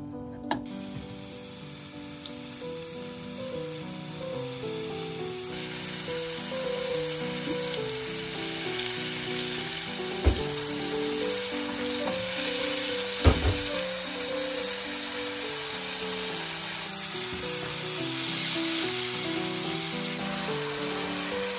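Minced garlic sizzling in oil in a nonstick frying pan as it is stirred, then frying in a soy-sauce seasoning; the sizzle grows louder about five seconds in. Two sharp knocks, about ten and thirteen seconds in.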